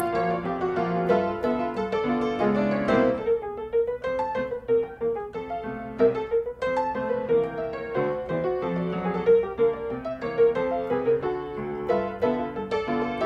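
Background piano music, many quick notes over held chords.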